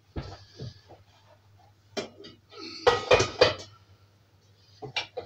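Stainless steel mixing bowl clanking and knocking as it is handled with a tea towel and fitted onto a stand mixer, with the loudest cluster of metal clunks about three seconds in.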